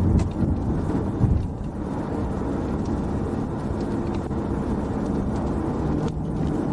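Steady road and engine noise inside a police patrol car cruising at highway speed, with one brief thump about a second in.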